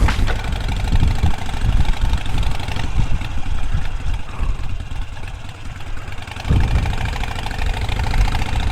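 Harley-Davidson motorcycle's V-twin engine running at low speed with a rhythmic low rumble, swelling louder about six and a half seconds in.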